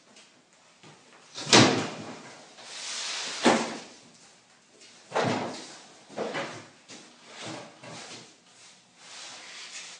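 A series of sharp knocks and thumps, the loudest about a second and a half in and another about two seconds later, with short scraping slides in between: plywood sheets being moved and set down on a workbench.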